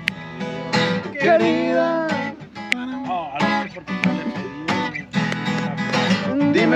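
Acoustic guitar strummed in a steady rhythm, with a voice singing in Spanish over it.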